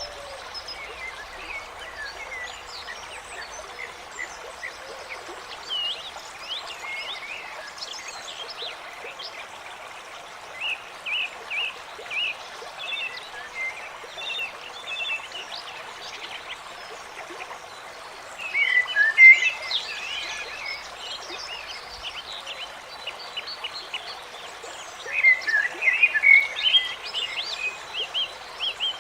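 Forest ambience: many small birds chirping and twittering over the steady rush of running water, with denser, louder bouts of chirping twice in the second half.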